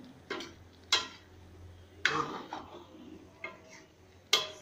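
A metal spoon clinking against a steel cooking pot while a simmering vegetable curry is stirred: about five sharp clinks at uneven intervals, the loudest about a second in and at the end.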